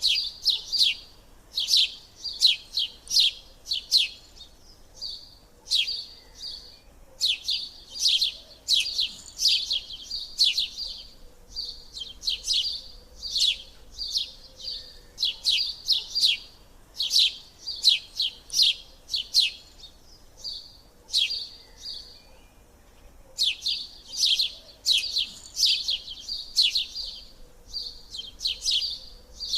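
Birds chirping: quick runs of short, sharp, high chirps, several a second, in bouts broken by pauses of a second or two.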